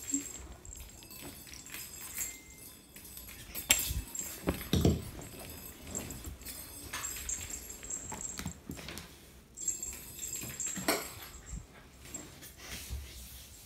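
A cat playing on the floor: scattered taps, knocks and thumps from its paws and body, loudest about 4 and 5 seconds in and again near 11 seconds.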